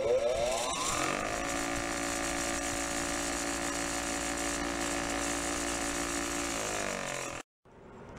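Bench grinder with a wire wheel spinning up to speed over the first second, then running steadily while a small bolt is held against the wire brush. Its pitch falls as it winds down in the last second before the sound cuts off.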